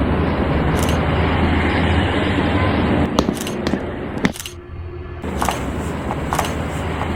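Steady, loud rumbling noise with a deep hum and scattered sharp clicks, like a vehicle or train in motion. It cuts out for about half a second around four and a half seconds in, then resumes.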